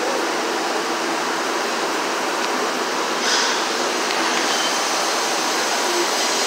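Steady, even rushing noise of a welding shop's background, with no chipping or hammer knocks.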